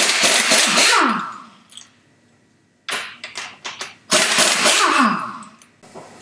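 Handheld impact wrench hammering in two bursts of about a second each, loosening the differential bearing cap bolts on a Dana 60 axle; each burst ends with the tool winding down in pitch. A few light metal clicks come between the bursts.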